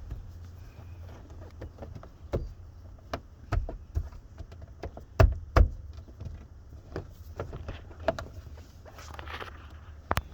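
Scattered clicks and knocks of hands working in a car's door opening, pulling elastic straps through the rubber door gasket and pressing the gasket back into place, with two louder knocks about five seconds in. A low steady rumble sits underneath.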